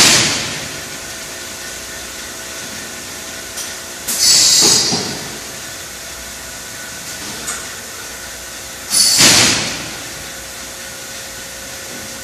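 Alloyd rotary-table sealing machine cycling: about every four and a half seconds a sharp clack followed by a burst of air hiss that fades over about a second, three times, over a steady machine hum.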